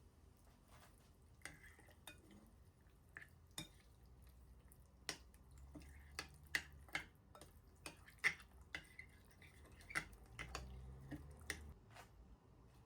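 Quiet, irregular clicks and light clinks of dishes and utensils being handled, some ringing briefly.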